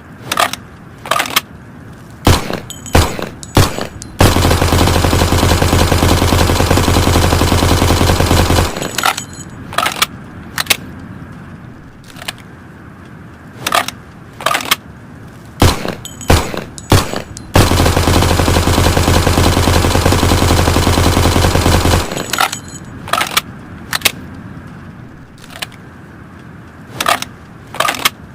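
Thompson submachine gun firing: scattered single shots, then a long fully automatic burst of about four seconds, more single shots, a second long burst of similar length, and single shots again.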